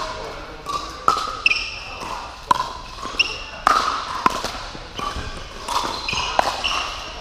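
Pickleball rally: paddles striking the hollow plastic ball in sharp pops, about five hits a second or so apart, with sneakers squeaking on the court between shots.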